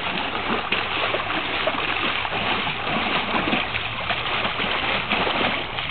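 Water splashing in the shallow edge of a swimming pool as a dog wades and noses about in it, over a steady rush of moving water.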